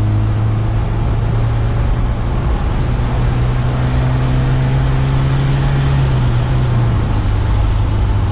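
1979 Alfa Romeo Alfetta engine heard from inside the cabin under way, a steady engine hum over a hiss of road noise. The engine note rises a little about two and a half seconds in and drops back near the end.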